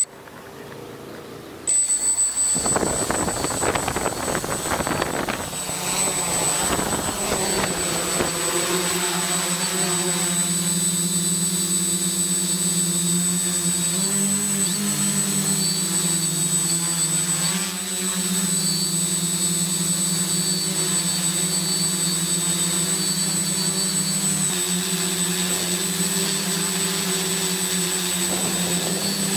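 Quadcopter's four electric motors and propellers spin up suddenly for takeoff about two seconds in, then settle into a steady buzzing hum with a thin high whine as it climbs and flies, shifting pitch slightly now and then.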